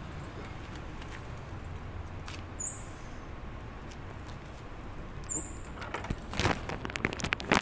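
Handling noise: a burst of sharp clicks and knocks near the end as a clip-on microphone's cable and a selfie stick are fiddled with. Underneath is a steady low outdoor hum, with a short high chirp about every three seconds.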